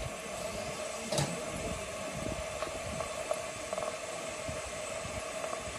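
Miniature steam locomotive standing in steam, hissing steadily, with one sharp click about a second in.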